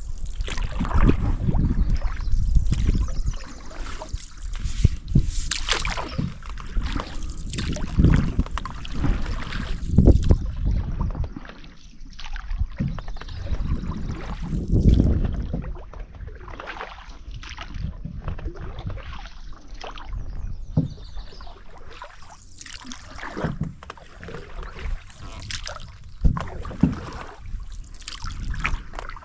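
Canoe being paddled along a creek: paddle strokes dipping and pulling through the water, with splashing and dripping and occasional low thuds, coming irregularly every second or few.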